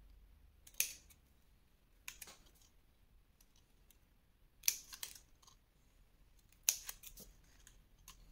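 Small scissors snipping notches into a thin paper strip: about six short, sharp snips, one to two seconds apart, some in quick pairs.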